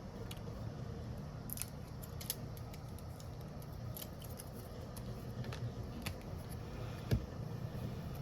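Scattered light clicks and taps of small hand tools working on a smartphone's parts, irregular, with one sharper tap about seven seconds in, over a steady low hum.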